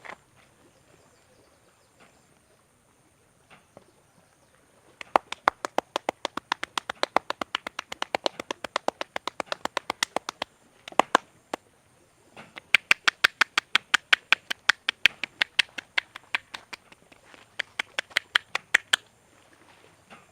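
Rapid, rhythmic hand strikes of a percussive head massage, the barber's hands tapping and slapping on the head about eight times a second. They come in three long runs with a brief pause between them.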